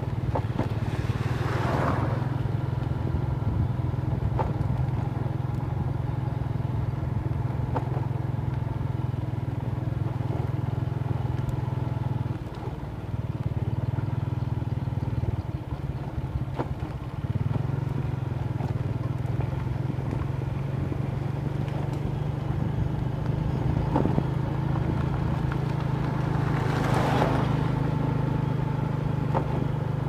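Motorbike engine running steadily on the move, its hum falling away for a few seconds midway and then coming back. Two brief rushes of noise, about a second in and near the end.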